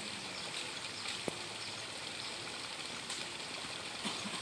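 Steady outdoor background hiss with no clear source, and a faint short click about a second in.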